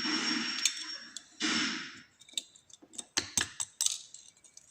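Small metal parts of a disassembled euro cylinder lock being worked with a tool: a short rustling hiss, then a run of sharp, irregular metallic clicks and taps as threaded pieces are coaxed out.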